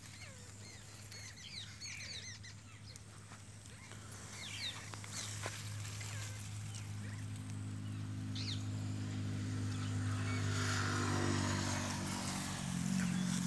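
Small birds chirping in short calls through the first half, over a steady engine hum that grows louder from about halfway through.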